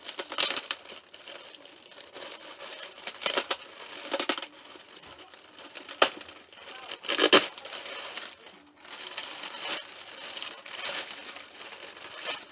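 Packing material being handled and pulled apart: irregular crinkling and tearing rustles, with a sharp click about six seconds in and the loudest rustle about seven seconds in.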